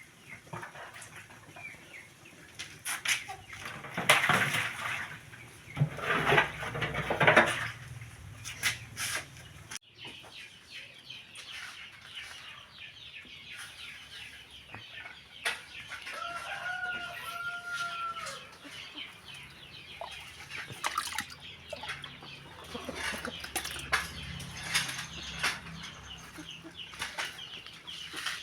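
Chickens clucking in irregular short bursts, with a brief drawn-out two-note call about sixteen seconds in.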